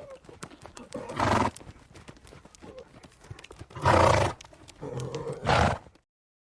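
Horse: a steady run of light hoof clicks, with loud rough vocal bursts about a second in, near four seconds, and twice more close together around five seconds. It cuts off shortly before the end.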